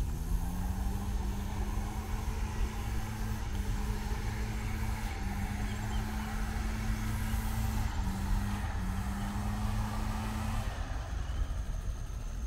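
An engine speeding up, then running at a steady pitch with a hum and a hiss, which cut off about ten and a half seconds in.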